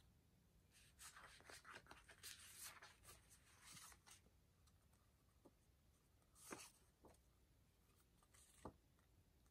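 Faint rustling and sliding of paper cards and a booklet being handled and moved, with a few soft taps. The most distinct tap comes about six and a half seconds in.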